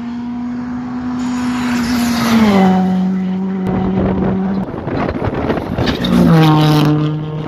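Ford Fiesta Rally2 rally car at racing revs as it approaches, its engine note stepping down about two seconds in as it lifts and shifts down. A run of sharp crackles follows, then a further downshift about six seconds in as the car passes close by, the loudest point.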